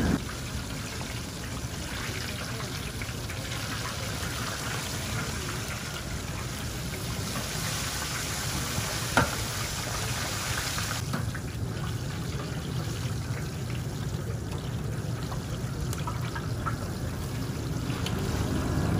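Fried oyster balls deep-frying in a vat of hot oil, the oil bubbling and sizzling steadily. A single sharp click sounds about nine seconds in, and the sizzle turns softer about two seconds later.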